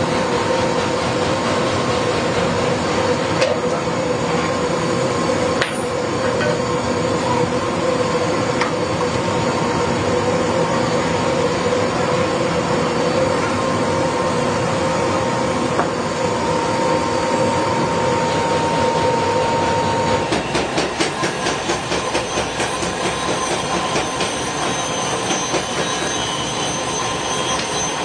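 Forging workshop machinery running with a steady metallic whine. About twenty seconds in, the whine fades and a fast run of metal strikes, about three to four a second, takes over.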